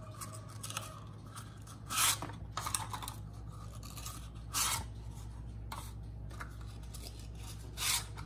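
Paper cupcake liners being pulled apart and handled, crinkling and rustling in three short bursts with lighter rustles between.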